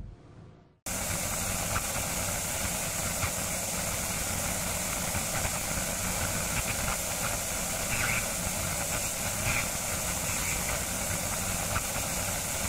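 The last note of the song dies away into a moment of near silence, then about a second in a steady, even hiss switches on abruptly, with a few faint ticks in it.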